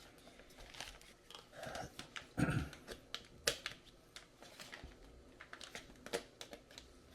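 Plastic packaging crinkling, with scattered small clicks and taps as the parts of an RC truck lift kit are handled and unpacked; one louder rustle and knock comes about two and a half seconds in.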